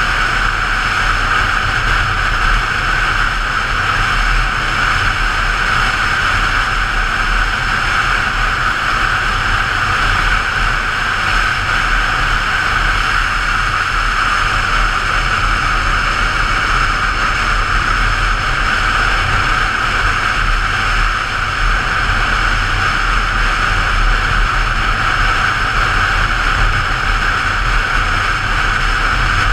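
Steady wind rush over a motorcycle helmet camera at road speed, with the motorcycle's engine and road noise as a low rumble beneath.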